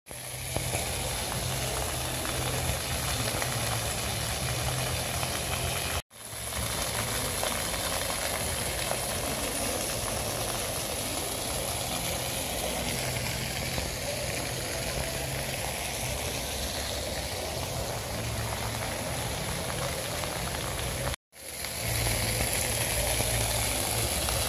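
Steady outdoor ambient noise picked up by a phone's microphone: an even hiss with a low rumble and a constant high-pitched tone, cutting out briefly twice.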